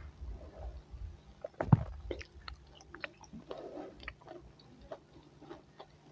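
Close-miked chewing and biting of grilled fish: a run of short, wet clicks and soft crunches, with one louder knock a little under two seconds in.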